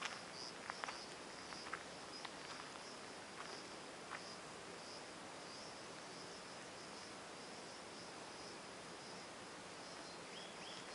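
Faint, steady high-pitched chirring of insects with a pulsing texture. A few soft footsteps on a gravel dirt lane sound in the first few seconds.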